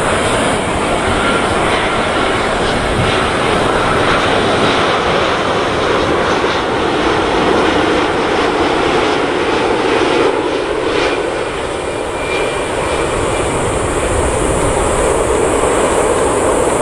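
Boeing 787-9 airliner's jet engines making a steady, loud rush of noise on approach to land.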